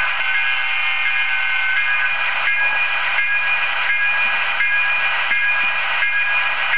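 Sound decoder of an Athearn HO scale MP15AC model locomotive playing through its small speaker: a diesel switcher's electronic bell, sounding as high steady tones that repeat about every 0.7 seconds, over a steady hiss of engine sound.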